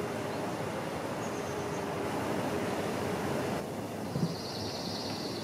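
Steady outdoor background rumble and hiss. About three and a half seconds in, the upper hiss drops away and a faint, steady high whine comes in, with a brief low thump just after.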